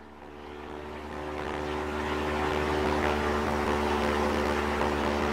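Propeller aircraft engines droning steadily, fading in over the first couple of seconds.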